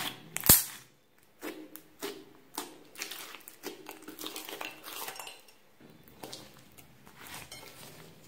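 Hands squishing and kneading glossy white slime in a glass bowl: a run of wet, crackly pops and clicks that grows quieter after about six seconds. A single sharp knock against the glass bowl about half a second in is the loudest sound.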